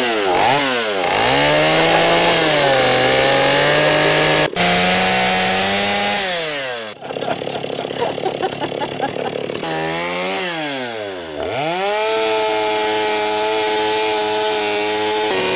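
Petrol chainsaw revving up and down several times, then held at high speed as it shreds a head of cabbage. It drops to a low idle and climbs back about eleven seconds in, and cuts off suddenly at the end.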